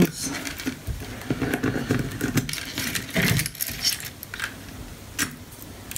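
Wire-harness connectors being unplugged from the power supply board of a Philips CD555 boombox, and the loose cables handled on a workbench. Small irregular plastic clicks and rustling, with a louder rustle about three seconds in.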